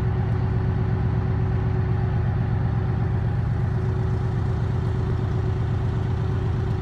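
Engine running steadily at low revs: a constant low drone with a faint steady hum above it, aboard a car ferry crossing icy water.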